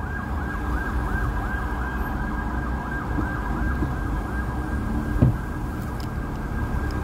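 Ambulance siren on a fast yelp, about four or five swoops a second, over the low rumble of idling traffic. A short thump about five seconds in.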